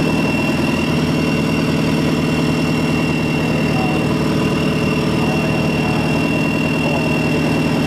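Isuzu D-Max drag pickup's 3.0-litre turbo-diesel engine idling at the start line with an even low pulsing beat, with a steady high whine over it.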